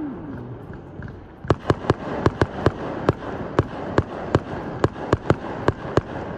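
Fireworks going off in a rapid, irregular string of sharp cracks and bangs, several a second, starting about a second and a half in, after a short falling tone at the very start.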